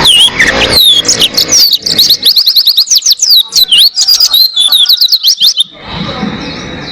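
Pleci (white-eye) singing a fast, continuous song of high chirps and quick sweeping notes, which breaks off near the end.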